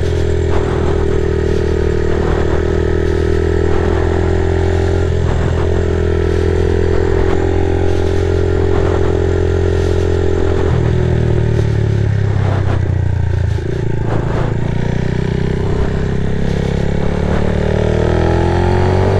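A 50cc moped's single-cylinder engine running at low speed. About ten seconds in its pitch drops, and near the end the revs climb again.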